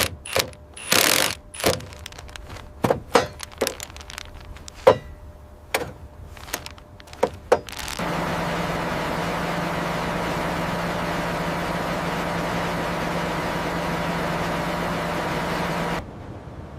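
A quick, irregular run of sharp metallic knocks and clanks, like tools and bolts being worked on steel. About halfway through, a loud steady machine noise with a low hum starts abruptly, runs evenly, then cuts off suddenly.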